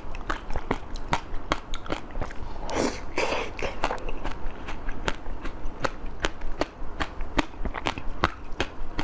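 Close-miked eating sounds: a run of sharp, irregular crunchy clicks from biting and chewing, with a longer, noisier bite about three seconds in.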